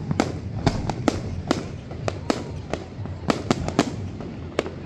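Aerial fireworks bursting: a quick, irregular run of sharp bangs and pops, a dozen or more in the few seconds, over a steady low background noise.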